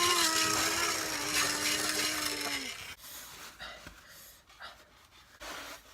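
A man's long drawn-out cry, held on one pitch and sliding slightly down, that cuts off about two and a half seconds in, followed by soft rustling and rubbing.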